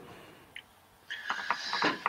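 Near silence for about a second, then a short breathy hiss over the video-call line: a person drawing breath before speaking.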